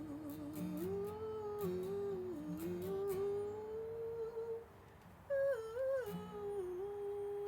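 Music: a single wavering melody line with low bass notes beneath it and no words, briefly dropping out about five seconds in before a higher phrase.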